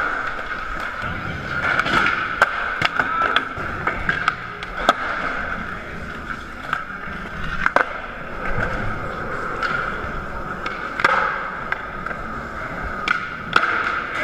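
Skateboard wheels rolling on a smooth hard floor with a steady rolling noise. It is broken by a series of sharp clacks as the board is popped and lands during flatground tricks.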